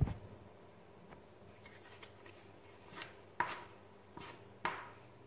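A plastic dough scraper cutting through a mass of bread dough, its edge pressing against the worktop. There are about four short, sharp strokes in the second half, after a knock at the very start.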